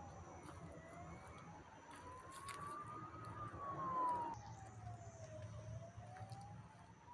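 A siren wailing, its pitch sweeping slowly up and down about every five seconds and loudest about four seconds in, over a low steady rumble.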